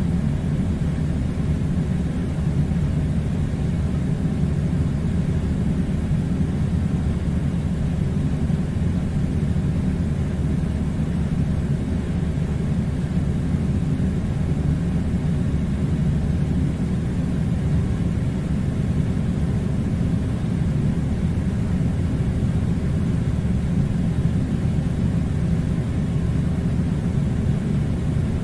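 Air conditioner running, a steady low rumble that does not change.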